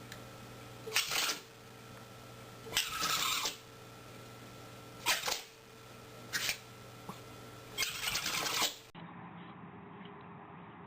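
A pet sneezing again and again: about five short, sharp sneezes a second or two apart. About nine seconds in, it cuts to a quieter, duller-sounding recording with only faint background noise.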